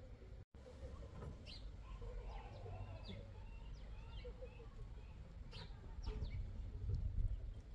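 Small birds chirping in short, scattered calls over a steady low rumble, with a brief dropout to silence about half a second in.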